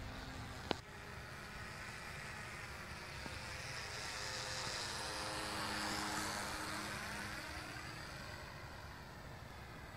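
Scratch-built foam-board RC plane's motor and propeller buzzing as it flies past overhead, swelling to loudest around the middle and then fading. A single sharp click about a second in.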